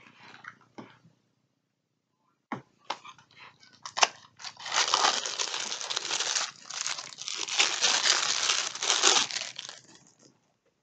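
Plastic packaging crinkling and tearing as it is unwrapped by hand: a few scattered clicks and rustles at first, then from about four seconds in a steady stretch of loud crinkling that stops just before the end.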